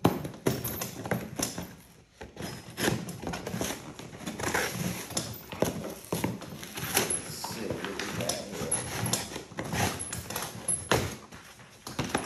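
Irregular knocks, taps and rustling from handling the airgun's box and packaging while unboxing it.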